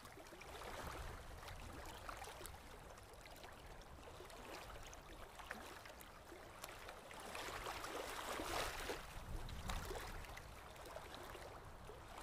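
Faint surf washing onto a sandy beach: a steady wash that swells for a few seconds about seven seconds in, then eases.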